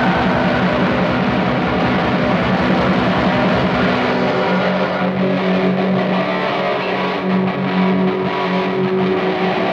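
Raw black metal: a loud, unbroken wall of heavily distorted guitar over fast drumming. About four seconds in the low drumming thins and a held guitar note comes forward.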